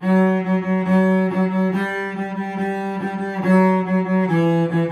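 Solo cello bowed on the D string, playing a short phrase of repeated notes in a long-short-short rhythm, stepping down to a lower note about four seconds in.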